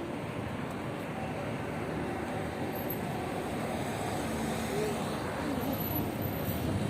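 Steady road and traffic noise of a moving vehicle, an even rumble without distinct events.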